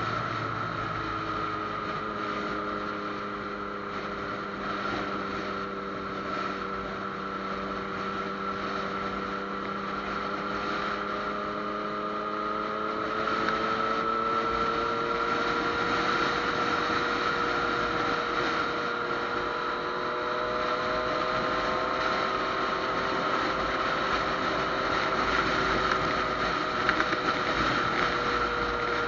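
Yamaha FZ-09's three-cylinder engine running at steady road speed under wind rush, its pitch drifting slowly up and down. It gets a little louder about halfway through.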